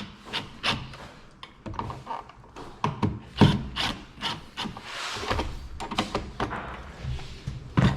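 Irregular clicks, knocks and scraping as a dimmer switch and its wires are handled and reworked in a wall box, after a wire was found on the wrong terminal.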